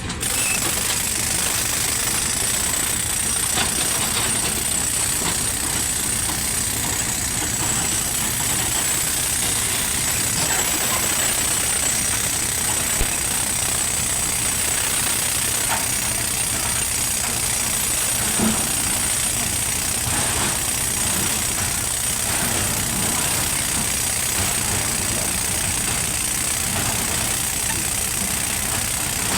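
Sany 140 excavator's diesel engine running steadily, with a few faint knocks.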